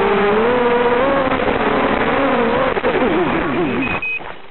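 ZMR250 FPV racing quadcopter's brushless motors whining on a 3S battery, the pitch rising and falling with the throttle. About three seconds in the pitch wavers rapidly up and down, then near the end the sound drops away.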